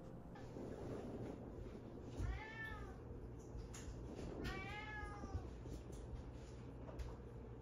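A cat meowing twice. Each meow rises and then falls and lasts under a second, and the two come about two seconds apart.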